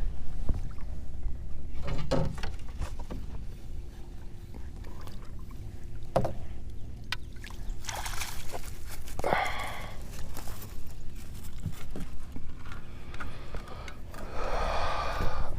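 Water splashing and sloshing against a small fishing boat, with a few sharp knocks on the boat, as a hooked catfish is brought in. There are two longer bursts of splashing, about eight seconds in and near the end.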